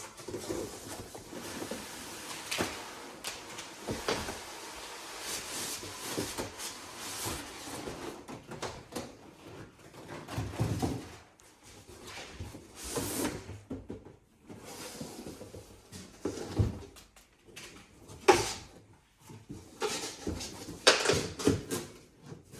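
Irregular handling sounds of packaging being worked open: scraping, rustling and sliding, with scattered knocks and a few louder bumps near the end.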